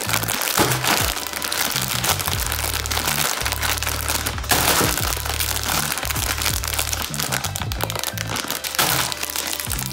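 Plastic instant-noodle packets crinkling and crackling as they are squeezed and turned in the hands, over background music with a bass line.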